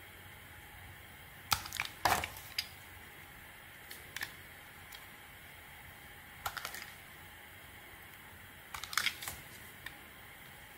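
A small metal blade cutting into a bar of soap: four short bursts of crisp crackling clicks as chips break off, the busiest about two seconds in and again near the end.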